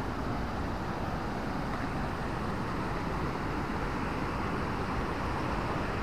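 Steady rushing of a shallow river and the check-dam waterfall, a constant wash of water noise with no breaks.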